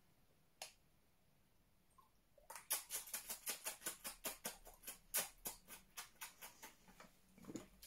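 Liquid glugging out of a small bottle held upside down at the mouth while it is drunk: a quick run of gurgling clicks, about five a second, starting about two and a half seconds in.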